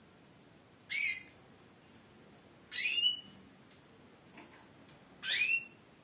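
Female Spanish Timbrado canary calling: three short rising calls a couple of seconds apart, with a faint shorter call between the second and third.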